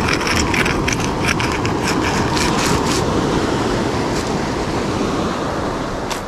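Steady rush of surf breaking on a pebble beach, mixed with wind. A quick run of small clicks and crunches of pebbles over the first three seconds as a PVC rod-holder pipe is worked down into the gravel.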